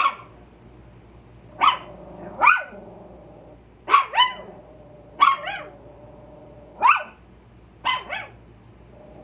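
Chihuahuas alarm-barking at a squirrel outside: sharp, yappy barks, singly and in quick pairs, about ten in all, every second or two.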